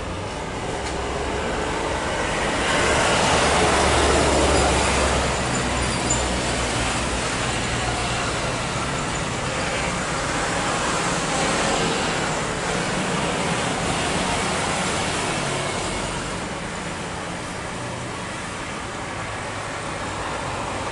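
Boeing 737 jet engines at takeoff thrust during the takeoff roll, liftoff and initial climb: a steady, broad roar, loudest a few seconds in and easing a little near the end as the jet climbs away.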